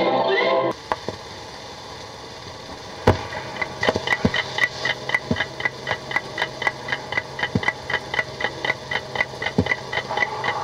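The tail of a music cue cuts off under a second in, leaving a steady hiss. From about three seconds in a clock ticks steadily, about three to four ticks a second, with a few louder clicks and pops scattered through.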